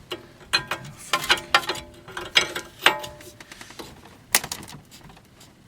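Hand wrench loosening a nut on a car's worn outer tie rod: irregular metallic clicks and clinks with a short ring, the sharpest clink about four seconds in.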